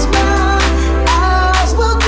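House music remix playing loud and steady: deep held bass notes under a sliding lead melody and layered synths.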